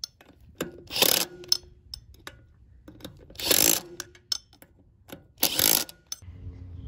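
Cordless drill run in three short bursts, about two seconds apart, with its bit in the centre of a go-kart wheel hub. Light metal clicks and clinks come between the bursts.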